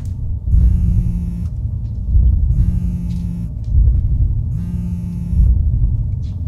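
Horror-film sound design: a deep rumbling drone under a harsh, steady buzzing tone that sounds three times, about once every two seconds, each lasting just under a second.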